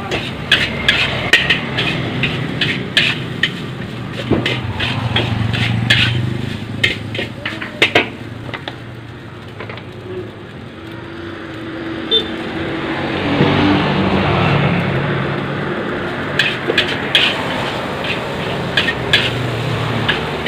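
Metal spatula scraping and clanking against a steel wok as fried rice is stir-fried, in quick irregular strikes. The strikes thin out in the middle, where a steady low rumble and hiss swell and fade before the clanking picks up again.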